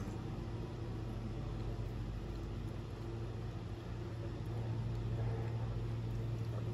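Steady low mechanical hum, a little louder from about halfway through.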